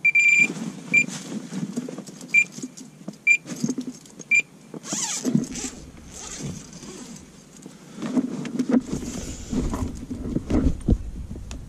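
A carp bite alarm sounds a tone and then a run of single beeps about a second apart, signalling a fish taking the bait. After the beeps comes rustling and knocking handling noise, with a low rumble in the later seconds.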